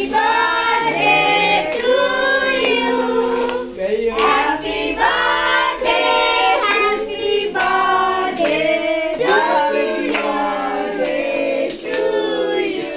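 Several voices, children's among them, singing together in held notes, with hands clapping along.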